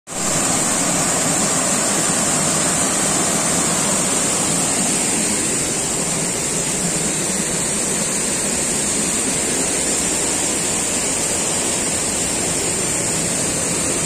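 Waterfall and stream water rushing over boulders in a steady, unbroken wash of noise, with a steady high hiss on top.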